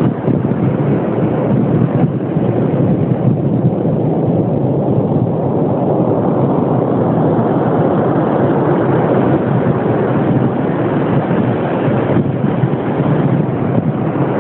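Steady, loud rush of wind buffeting the microphone, mixed with the wash of surf.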